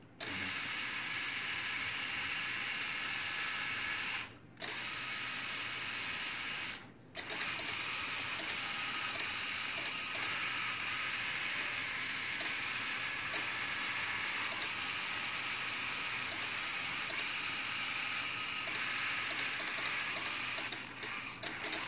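Three electric linear actuators of a 3-RPS parallel platform driven by joystick: a steady high motor-and-gear whine that stops briefly twice, about four and seven seconds in, and stutters on and off near the end.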